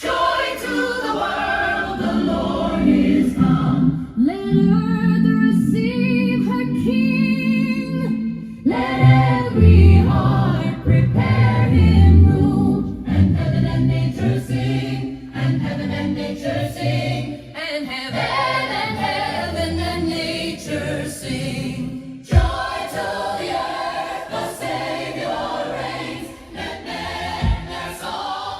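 Choral music with many voices singing, starting suddenly after a moment of silence, played back through an LG LHD657 home theater system's speakers during a sound test.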